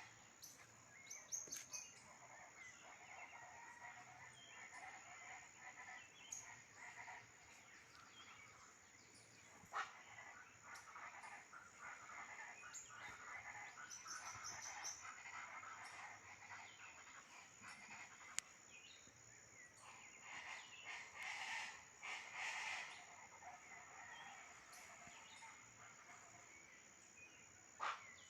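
Faint dawn chorus of many distant birds calling, with a thin steady high tone running underneath.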